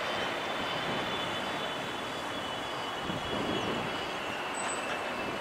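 Boeing 777-200F freighter's twin GE90 turbofan engines during the landing roll-out: a steady jet rush with a thin high whine that slides slowly down in pitch as the aircraft slows.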